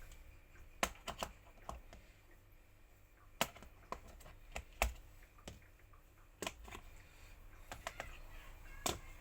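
Irregular sharp clicks and taps of hand tools and plastic and metal parts being handled while an industrial vacuum cleaner's main power cable is being replaced.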